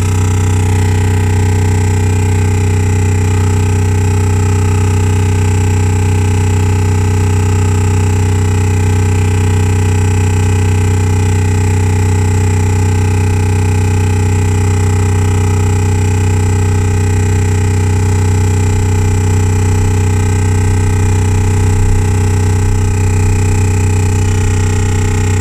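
Renault Grand Scénic's Bose speakers putting out a loud, unbroken low drone with many steady tones layered above it. This is a fault noise the owner likens to a compressor drill, which plays even with the sound system turned off. It was later traced to the R-Link navigation system and cured by reprogramming it.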